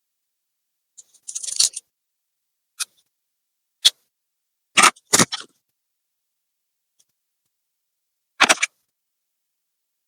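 Laptop parts and tools being handled during disassembly: a brief scrape about a second in, two light clicks, then two louder knocks in quick succession around the middle and one more near the end, with complete silence between them.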